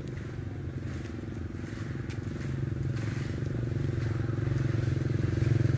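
A motorcycle engine running steadily and growing louder as it draws near, loudest near the end.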